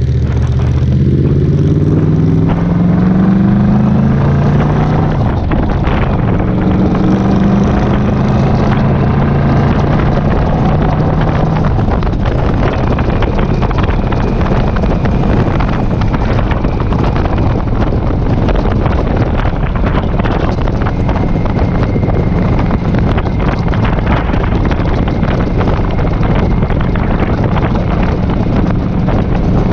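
Touring motorcycle engine pulling away, its revs climbing through two gears with a shift about two and a half seconds in, then running steadily at cruising speed. Wind rushes over the microphone the whole time.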